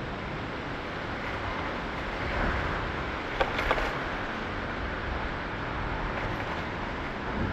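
Steady rumble of a moving vehicle, swelling briefly about two seconds in, with a few sharp clicks about three and a half seconds in.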